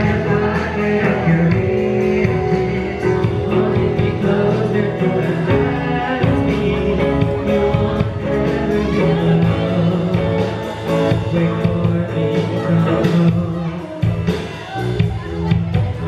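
A live rock band playing: a singer into a microphone over electric guitar and a drum kit.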